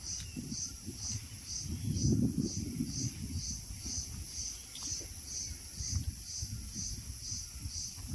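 High-pitched insect song pulsing steadily, about two pulses a second, over a low rumble that swells about two seconds in.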